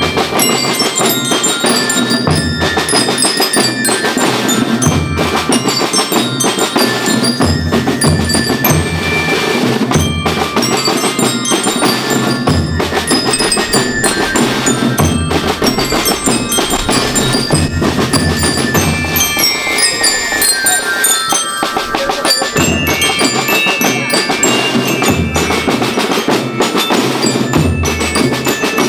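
School rhythm band playing: glockenspiels carry the melody in bright, ringing notes over steady drum beats, with a descending run of notes about twenty seconds in.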